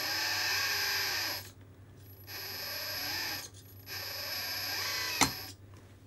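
Kabolite K961-100S RC excavator's hydraulic pump and valves whirring in three spells of about a second and a half each as the arm and bucket are moved, the pitch sliding up and down within each spell. There is a sharp click about five seconds in.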